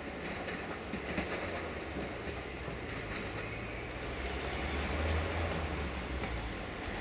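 Diesel railcar running away down the line, with a low engine rumble that swells about five seconds in and a few wheel clicks over the rail joints near the start.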